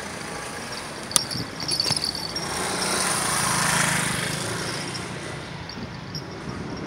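A motor vehicle passing close, its engine and road noise swelling to a peak about four seconds in and then fading. A sharp click comes just after one second.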